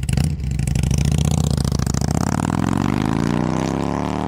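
Motorcycle engine revving: a sharp burst of throttle at the start, then the engine note climbs steadily in pitch over about three seconds as it accelerates.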